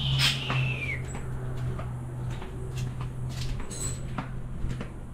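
A short, high animal call that glides downward in pitch near the start, over a steady low hum, with scattered light clicks and taps.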